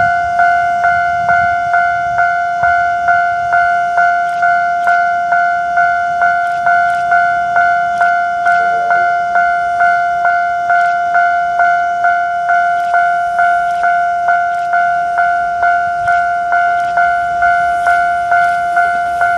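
Japanese railway level crossing alarm ringing: a steady electronic bell tone re-struck evenly a little over twice a second, the warning that a train is approaching the crossing.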